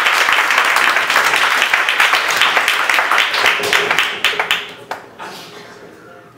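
Audience applauding, dense clapping that dies away about five seconds in.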